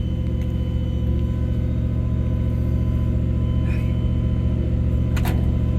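Steady low machine hum, with a short click about five seconds in.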